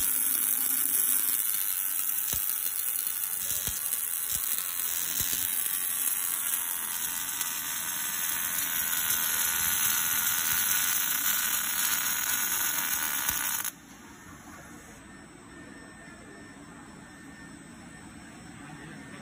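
MIG (gas-shielded wire-feed) welding arc buzzing steadily as an automatic welder's rotating torch runs a circular seam around a nozzle on a steel plate; the arc cuts off suddenly about 14 seconds in.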